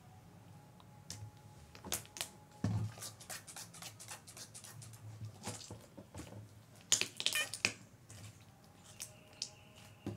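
Clear slime mixed with purple clay being kneaded and squeezed by hand, making sticky crackling clicks and squelches. The clicks come densest and loudest about seven seconds in, over a faint steady low hum.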